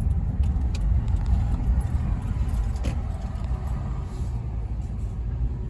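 Car driving, heard from inside the cabin: a steady low rumble of road and engine noise, easing off a little in the second half, with one light click about three seconds in.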